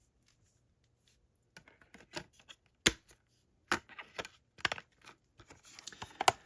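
Metal Blu-ray steelbook cases being handled: a string of uneven clicks and taps starting about a second and a half in, the loudest about three seconds in.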